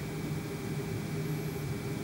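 Steady whirring hum of a parked car's heating system running with the engine off: the cabin blower moving warm air from a converted Eberspächer Hydronic D3WZ diesel coolant heater, with a low hum under a faint high whine.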